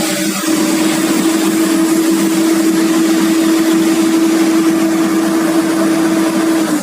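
Komatsu PC200-8 excavator's diesel engine running steadily at high revs, with a constant droning note. It drops away sharply at the very end.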